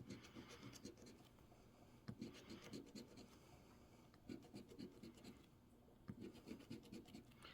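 Faint scratching of a coin across the coating of an instant scratch lottery ticket, in about four short bursts with brief pauses between them.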